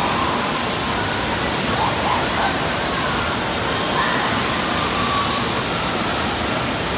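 Steady rushing of churning pool water, with faint distant voices of people in the pool calling out over it.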